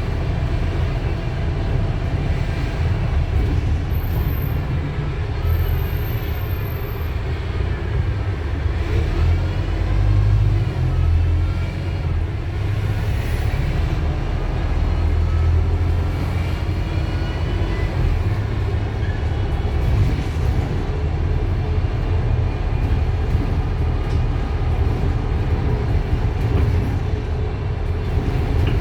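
Wright StreetDeck double-decker bus running, heard on board: the low rumble of its Mercedes-Benz OM934 four-cylinder diesel engine, with a whine that climbs in pitch and drops back several times as the bus gathers speed.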